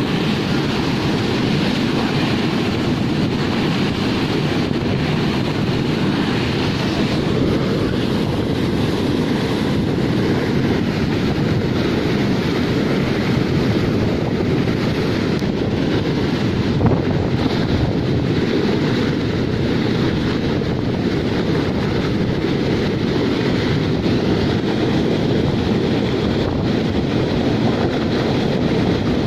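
Heavy water pouring steadily over a dam's lowered flap gate and down the concrete spillway: a loud, even, deep rush of falling water. The gate is releasing the reservoir's surface layer to flush floating debris.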